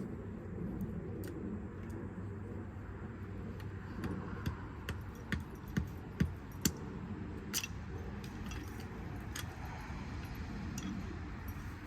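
Campfire crackling, with scattered sharp pops over a steady low rumble. A quick run of about five louder knocks comes between about four and seven seconds in.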